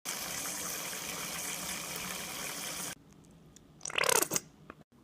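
Hot water running from a tap, filling a container to soak a rusty table-saw blade, then shut off abruptly about three seconds in. About a second later comes a short sound falling in pitch.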